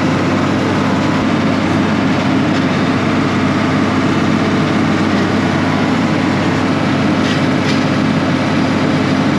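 Tractor engine running steadily while baling hay, a continuous low drone.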